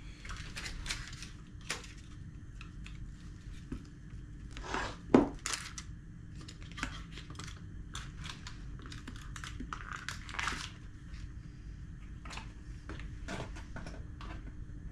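Kitchen handling sounds as butter is taken for the pan: a paper wrapper crinkling and tearing, with scattered clicks and one sharp knock about five seconds in, over a faint steady hum.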